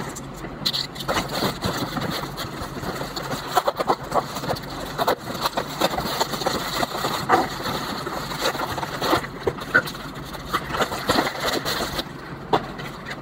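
A parcel's packaging being torn open and handled by hand: irregular crackling and rustling throughout.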